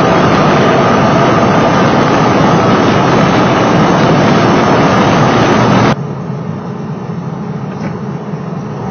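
Porsche 968's supercharged 3.0-litre four-cylinder with a D1R supercharger, heard from under the hood, running loudly at steady revs with a steady whine over the engine noise. About six seconds in it cuts off abruptly to the much quieter engine ticking over.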